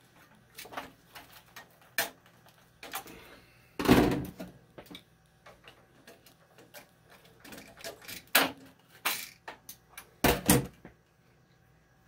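Clicks and knocks of hands and a wire stripper working the wires at an electric water heater's thermostat, with a louder knock about four seconds in and two more close together near the end.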